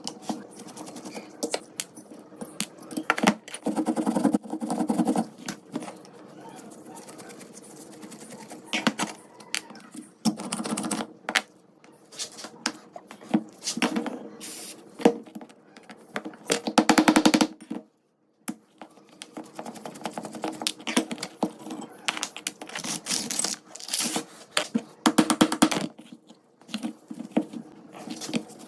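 Hand work on the metal parts of an old rusty revolver: sharp clicks and taps of metal on metal, with several bursts of rapid scraping or brushing strokes, over a faint steady hum.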